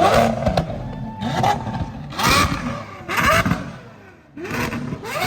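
A supercar engine revved over and over in short blips, about once a second, each one climbing sharply in pitch and then dropping away.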